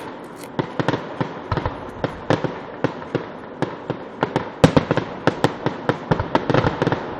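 Fireworks going off in a rapid, irregular run of sharp cracks and bangs, densest and loudest about four to five seconds in. Recorded on a cell phone.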